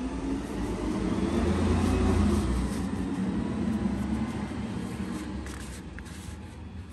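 A motor vehicle's engine passing by, swelling to its loudest about two seconds in and then slowly fading. A few faint ticks near the end.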